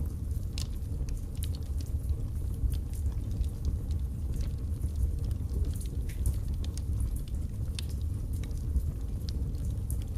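Birchwood logs burning in a fireplace: a steady low rush of flame with many sharp, irregular crackles and pops.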